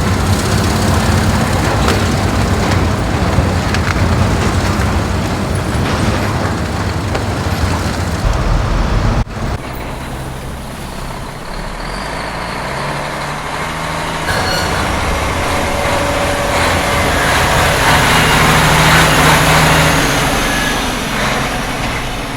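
Heavy vehicle engine running, loud, with a sharp break about nine seconds in before a second stretch of vehicle noise that swells and then fades.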